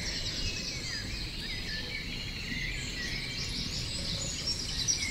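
Songbirds singing, a busy mix of short chirps and warbling phrases, over a low steady rumble.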